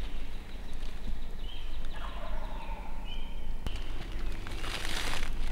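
Wild turkey gobbling, one rattling gobble about two seconds in, with short high chirps from other birds. A brief rush of noise comes near the end.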